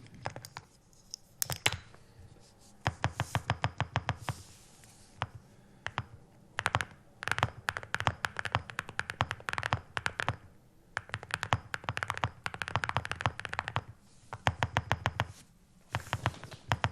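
Typing on a mechanical keyboard with ceramic keycaps, in quick runs of keystrokes with short pauses between. The spacebar has a dampening mod, but its stabiliser still clangs, which the typist says is worse in person than on the mic.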